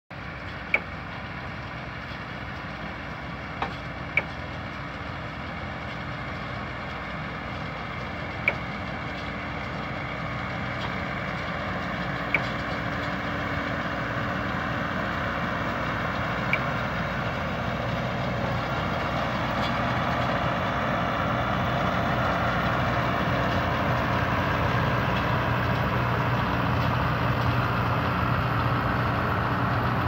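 Tractor engine running steadily as it pulls a New Holland round baler through a hay windrow, the tractor and baler growing louder as they draw closer. A few short, sharp high ticks in the first half.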